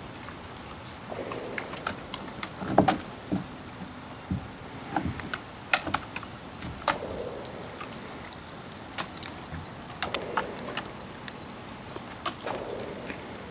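Siberian husky gnawing on a raw cow marrow bone: irregular crunches, scrapes and knocks of teeth on bone and of the bone against the wooden deck, the loudest about three and six seconds in.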